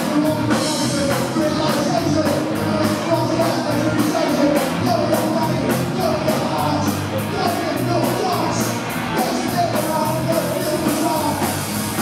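A punk rock band playing live and loud: distorted electric guitars, bass and drums with a fast, steady beat on the cymbals, and a singer shouting the vocal line.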